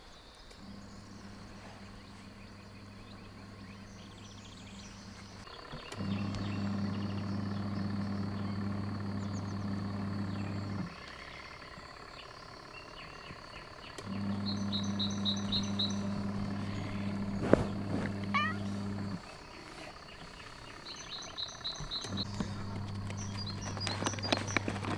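An electric motor hums steadily in runs of several seconds, switched on and off, faint at first and louder from about six seconds in. Birds chirp in short bursts and a few sharp knocks sound in the later part.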